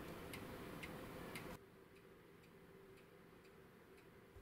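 Pendulum clock movement ticking from its escapement, an even tick and tack about twice a second. Faint, and fainter still after about a second and a half.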